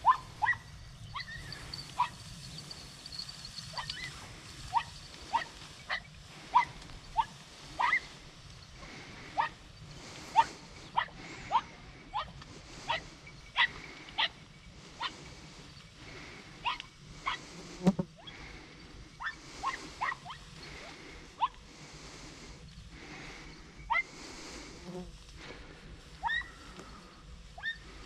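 Podenco hunting dogs yelping in short, high, repeated cries, irregularly about one or two a second, as they give tongue while hunting rabbit in the brush. About halfway through there is one deeper, louder bark.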